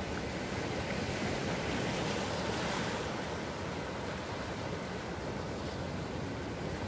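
Sea surf breaking and washing over and between boulders on a rocky shore, a steady rush of water that swells a little louder about two to three seconds in.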